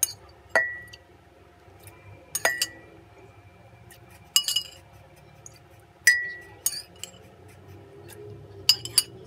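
A utensil clinking and tapping against the glass jar of a Tough Mama blender as cooked vegetables are added; three of the clinks ring briefly, with a quick cluster of taps near the end. The blender is not running.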